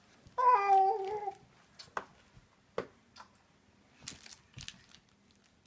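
A toddler's single drawn-out wordless vocal sound, about a second long and stepping down in pitch, followed by a few faint clicks and taps of toys being handled.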